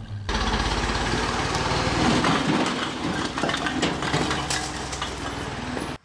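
Massey Ferguson MF-40 backhoe's engine running, with bricks clattering and crunching as the loader bucket scoops into the brick pile on gravel. The sound cuts in abruptly just after the start.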